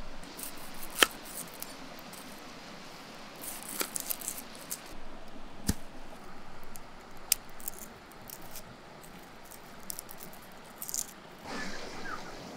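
Crisp lettuce leaves and vegetables being handled in a wicker basket: rustling and crackling with scattered sharp clicks and snaps, the loudest about a second in. Near the end the steady rush of a stream comes in.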